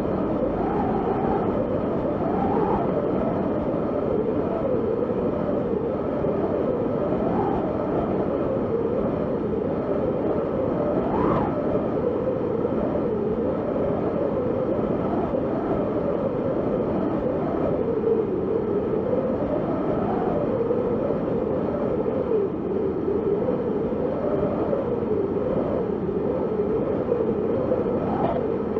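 Strong wind blowing steadily, with a howl that wavers up and down in pitch. A brief higher whistle of a gust comes about eleven seconds in.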